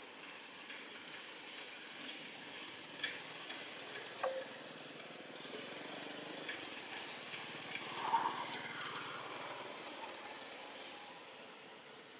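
Steady faint hiss of outdoor background noise, with a few soft clicks and a short brief sound about eight seconds in.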